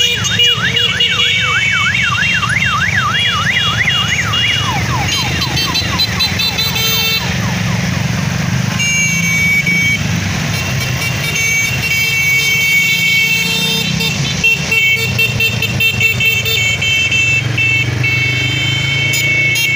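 A procession of small motorcycles, scooters and an ATV riding past, their engines running together. An electronic siren yelps rapidly, about four sweeps a second, for the first four seconds or so. Horns honk and are held through the second half.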